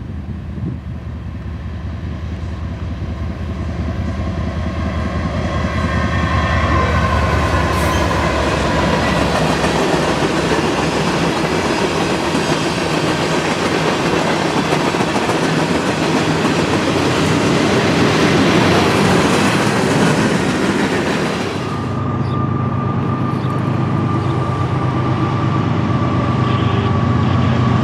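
Diesel-hauled train passing close: the locomotive's engine hum grows louder over the first few seconds, then the cars roll by with steady wheel noise and clickety-clack over the rail joints. About three-quarters of the way through the sound changes and a thin steady whine sets in.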